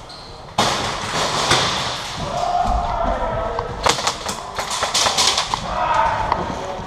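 Airsoft gunfire: a cluster of sharp cracks about four to five seconds in, among scattered thumps and knocks.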